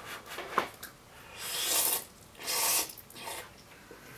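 A person slurping noodles from a cup of instant noodles, twice: one slurp about a second and a half in and a shorter one a second later.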